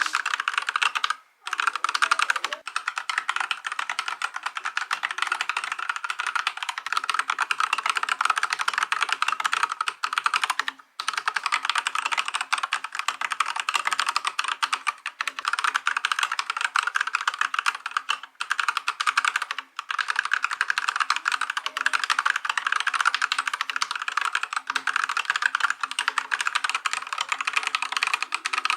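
Fast, continuous typing on an Akko 5108B mechanical keyboard, a dense stream of key clicks broken by a few brief pauses.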